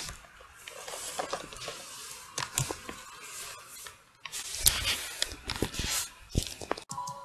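Handling noise close to the microphone: rustling and scraping with scattered sharp clicks and knocks, the loudest a few clicks around two and a half and five seconds in.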